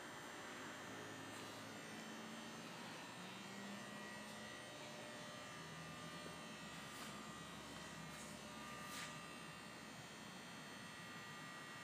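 Faint steady electrical hum and hiss: room tone, with a few faint ticks in the second half.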